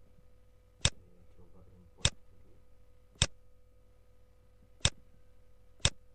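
Computer mouse clicking: five sharp single clicks at uneven intervals over a faint steady hum.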